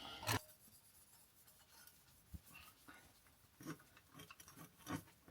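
Faint handling and rubbing sounds as a chrome exhaust pipe is hand-polished, with a sharper knock right at the start and a few light scattered taps and knocks after it.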